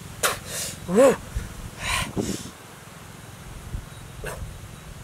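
A man's breathy reaction sounds to a very sour, spicy mouthful: short hissing breaths through the teeth, with a brief rising-and-falling yelp about a second in and a shorter vocal sound just after two seconds.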